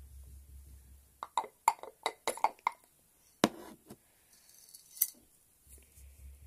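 Small magnets clicking and clinking against each other and a bowl: a quick run of sharp clicks about a second in, then a louder single click, and one more about a second and a half later.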